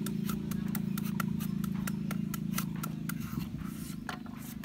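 Quick crisp clicks, about four a second, of a cleaver hacking into papaya flesh and a hand shredder scraping a peeled green papaya into strips. Under them runs a steady low hum that fades out about three seconds in.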